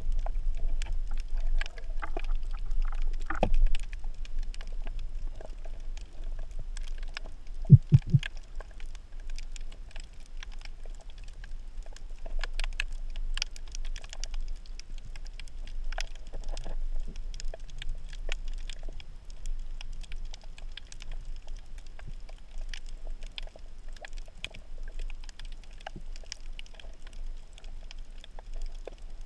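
Underwater ambience heard by a diver's camera: a low steady rumble of water movement with scattered crackling clicks, a knock about three seconds in and a louder dull double knock about eight seconds in.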